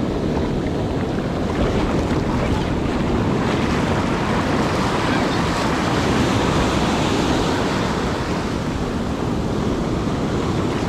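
Shore-break surf washing up the beach: a steady rush of foaming water over sand, with wind rumbling on the microphone.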